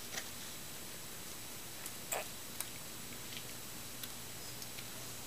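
A toddler eating a soft bread bun: a handful of faint, irregular mouth clicks and smacks over a steady low hiss.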